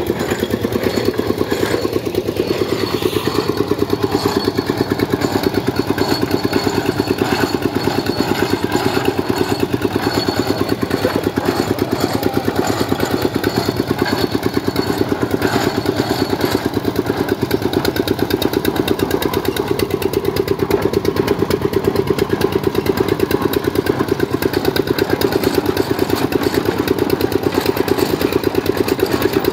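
Concrete mixer's engine running steadily with a fast, even beat.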